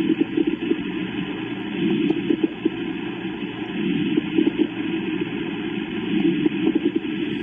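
Stethoscope recording of coarse lung crackles: low, bubbling crackles that swell with each breath, about every two seconds. They are the sign of secretions in the medium or large bronchi.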